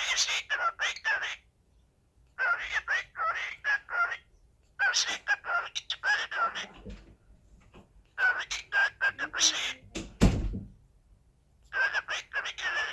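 Cockatiel chattering in five bouts of rapid, short chirping calls with brief pauses between them, agitated calling that the owner takes for anger. A dull thump comes about ten seconds in.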